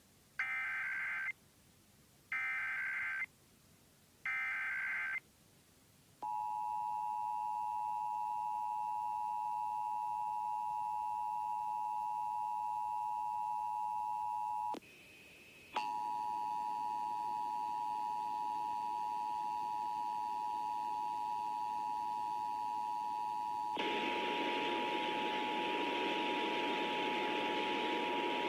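Emergency Alert System test tones: three short bursts of warbling digital data (SAME) tones, then the steady two-tone EAS attention signal. The attention signal breaks off briefly about halfway through, where a short higher beep sounds, then resumes. A hiss of radio static joins it for the last few seconds.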